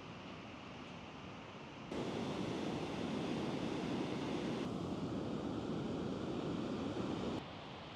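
Sea waves breaking and washing up a sandy beach, a steady rushing surf. It jumps louder about two seconds in and drops back near the end.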